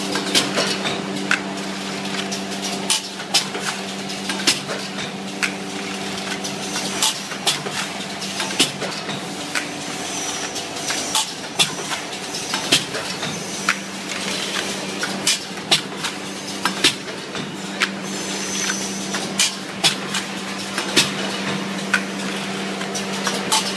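Automatic blister card packaging machine running: a steady motor hum with sharp metallic clacks from its moving parts, the loudest about once a second.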